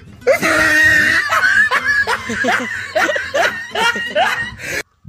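A young man laughing loudly in a long string of short bursts, cut off abruptly near the end.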